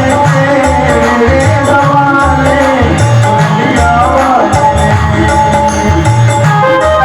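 Devotional music, a bhajan: a voice sings a gliding melody over a steady drum beat.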